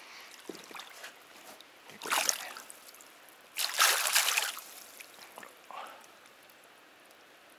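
Water splashing in two short bursts, about two seconds in and again near four seconds, the second one longer, over a faint steady flow of water.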